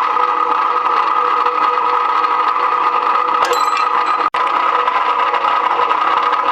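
Chinese GQ-series rebar cutting machine running with a steady mechanical hum from its electric motor and drive. A short metallic clatter comes about three and a half seconds in, and the sound briefly cuts out just after four seconds.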